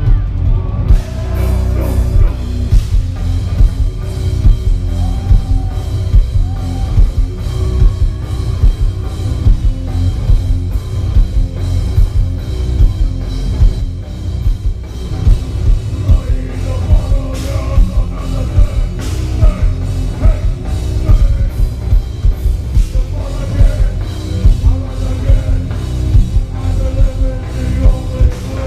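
Heavy metal band playing live: distorted electric guitars and bass over a drum kit, with a steady pulse of heavy drum hits, recorded loud from the crowd.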